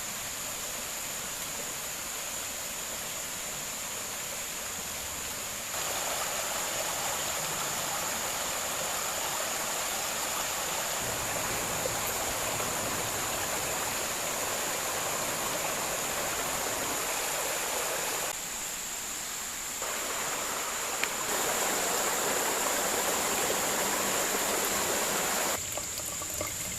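Mountain creek rushing over rocks, a steady rush of water that jumps up and down in loudness several times, with a steady high-pitched tone running above it.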